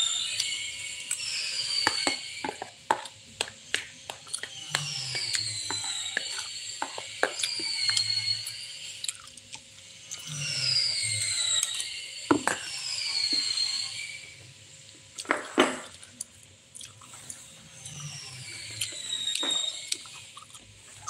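Metal spoon scraping and tapping on a plastic plate while eating, with sharp clicks scattered throughout and two louder knocks in the second half. Behind it, high falling whistled notes repeat in short phrases every few seconds.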